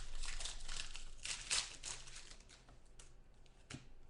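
Crinkling and tearing of a foil trading-card pack wrapper, dense for the first couple of seconds, then thinning to a few separate sharp clicks.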